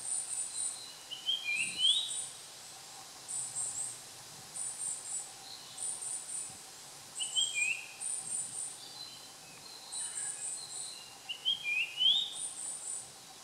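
Japanese grosbeak singing its clear whistled song: three phrases of rising and falling whistles, about five seconds apart. Under it runs a steady series of thin, very high chirps in groups of three, about once a second.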